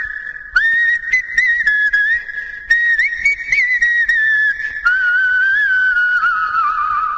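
Whistled ringtone melody in three long, held phrases that slide gently between notes, the last phrase lower and sinking in pitch.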